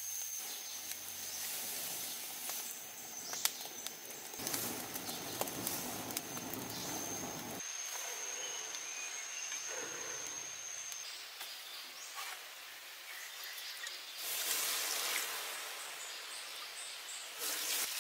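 Outdoor forest ambience: a steady high-pitched insect whine that stops about two-thirds of the way through, with bird chirps. Scattered light crackles and rustles come from a smoking straw fire being tended.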